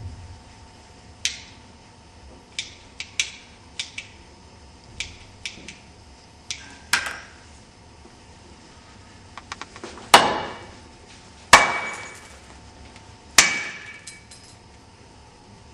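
An irregular series of sharp knocks and clinks on a hard object, then three much louder strikes, each ringing out before the next.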